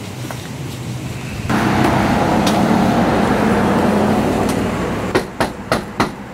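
A loud stretch of passing traffic noise that starts abruptly and fades, followed near the end by four quick knocks on a front door.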